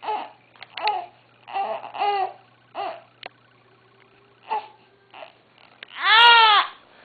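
Infant under two months old making short coos and babbling sounds. About six seconds in comes a louder, higher cry-like squeal that rises and then falls in pitch.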